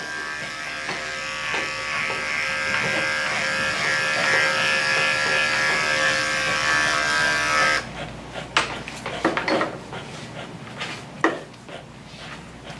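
Electric dog-grooming clippers running steadily as they clip a dog's coat, then stopping abruptly about eight seconds in. After that come scattered light clicks and rustles of handling.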